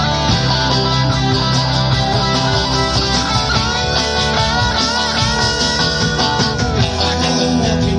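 Rock music in an instrumental break with no vocals: a guitar plays a lead line with bending notes over a steady band backing.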